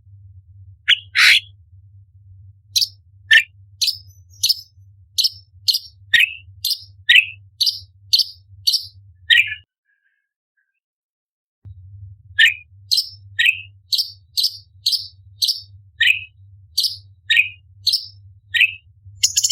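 Orange-bellied leafbird giving a rapid run of short, sharp calls, about two a second, alternating high piercing notes with lower down-slurred notes. The calling breaks off for about two seconds midway and then resumes at the same pace.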